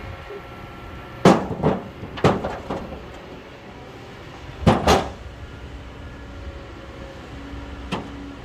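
Stones being dropped into a tractor's steel trailer bed, giving sharp knocks: several in quick pairs in the first half and one more near the end. A steady diesel engine hum from the excavator and tractor runs beneath.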